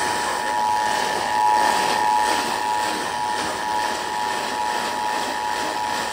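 Emergency Alert System attention signal: the two-tone (853 and 960 Hz) alert tone held steady, received off the air over a radio with hiss behind it.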